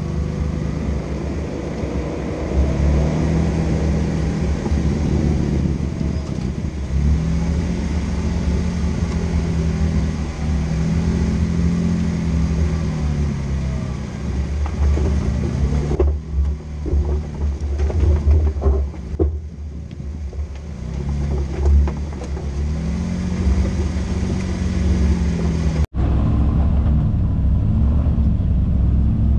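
Off-road vehicle's engine running, its pitch rising and falling again and again as it revs up and eases off, over a heavy low rumble. A run of knocks and rattles comes about two-thirds of the way in.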